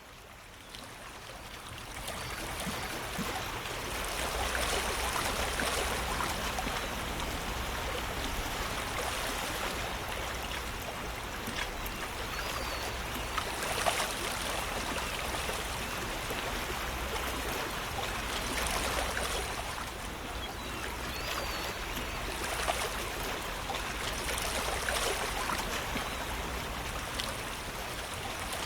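Running water like a flowing stream: a steady rushing and trickling that fades in over the first couple of seconds, then holds with small swells.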